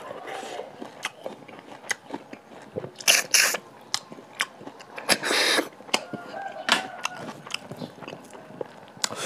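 Close-up eating sounds of a person sucking cooked snails out of their shells: two loud slurps, about three and five seconds in, between wet chewing and small clicks.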